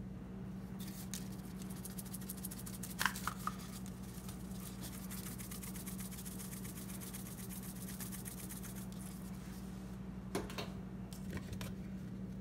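Shaker bottle of dried Italian seasoning shaken over an open zip-top bag of flour: a fast, dense run of light rattling and pattering for several seconds, starting about a second in, with a few sharp clicks as the bottle is handled, the loudest about three seconds in and more near the end. A steady low hum runs underneath.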